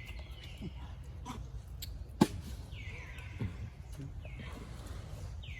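Animal calls: about four high chirps, each falling in pitch, with one sharp click a little over two seconds in over a steady low rumble.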